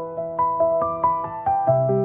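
Soft background music: a slow piano melody of plucked-sounding held notes, about four a second.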